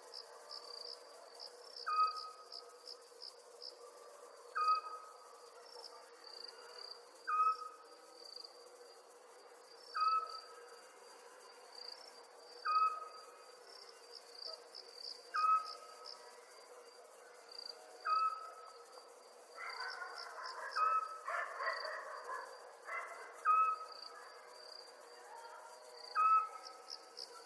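Night ambience of crickets chirping in quick trains of pulses. A short call repeats evenly about every two to three seconds, over a steady low hum. A brief rustling noise comes about twenty seconds in.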